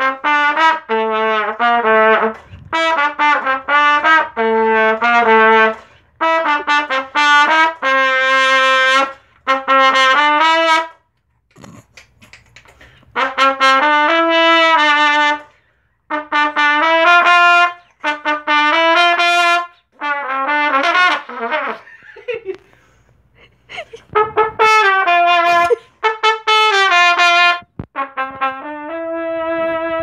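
Trumpet playing short phrases of separate tongued notes at changing pitches, with pauses of a second or two between phrases.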